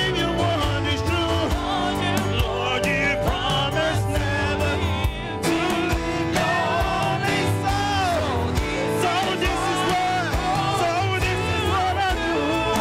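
Live gospel song: a male lead singer with a choir of women's voices answering him, over band accompaniment with bass and drums.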